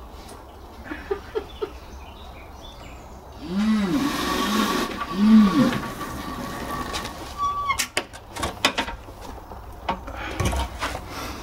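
Home-built lithium-battery electric motorcycle pulling away across grass: a rush of noise with a motor whine that rises and falls three times over a couple of seconds and a steady high whine under it, then scattered knocks and clicks as it comes to a stop.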